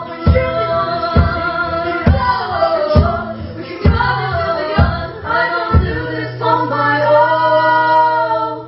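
Live band music with female voices singing wordless harmony over a low beat about once a second, then a final chord held from about six seconds in that stops near the end: the close of the song.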